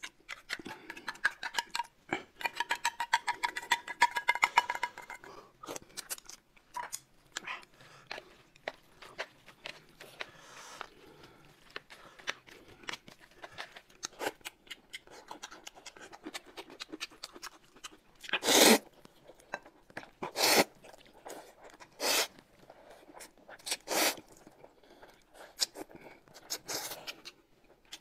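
Close-miked eating sounds: rapid clicking of chopsticks and utensils with chewing, then five loud short slurps in the second half.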